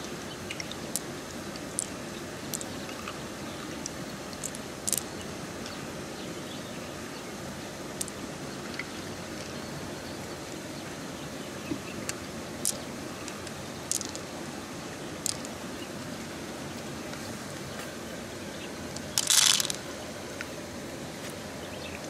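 Light clicks of pearls tapping against each other and the mussel's shell as they are picked out by hand, then a short rattle near the end as the handful of pearls is tipped into the shell half. A steady hiss of running water goes on underneath.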